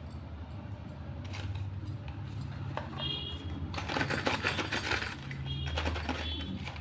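Slate pencils clicking and clinking against each other and their box as they are handled, with a dense run of rapid clatter about four seconds in and a few brief high squeaks.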